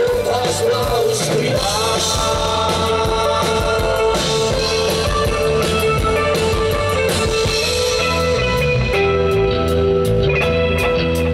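Rock background music with guitar, carried by long held notes over a full low end.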